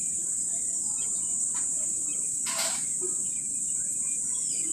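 Steady high-pitched drone of insects, crickets or cicadas, with scattered faint bird chirps and a brief hiss about two and a half seconds in.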